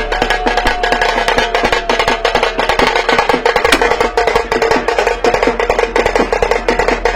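Fast, dense drumming, about ten sharp beats a second, over a steady held tone.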